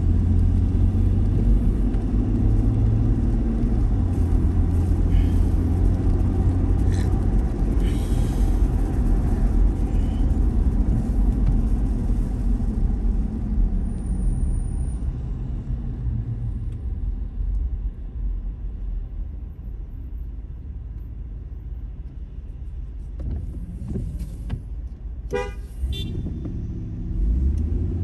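Car cabin road noise: low engine and tyre rumble with a tyre hiss on a wet road, which dies down about halfway as the car slows to a stop. Near the end a car horn gives a short toot, and the rumble rises again as the car pulls away.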